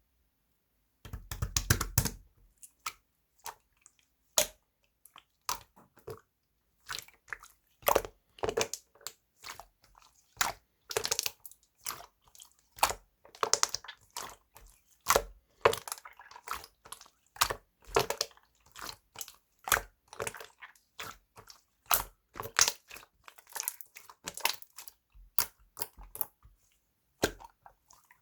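Close-up crunching: a long string of separate crisp crunches and crackles, irregular at about one to three a second, starting about a second in.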